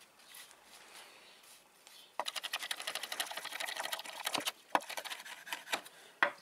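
Kitchen knife chopping rosemary on a wooden cutting board: a fast, even run of taps, about ten a second, starting about two seconds in, then a few single knocks of the blade on the board near the end.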